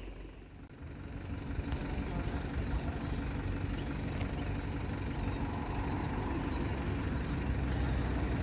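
A vehicle engine idling steadily with a low hum. It fades in after a brief dip near the start.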